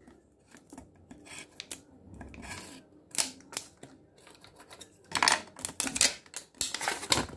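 Pencil tracing around a cardboard template on a thin flattened sheet of tin: light, irregular scratches and taps of pencil lead on the metal, with a louder stretch of scraping and sheet-metal crinkle a little after five seconds.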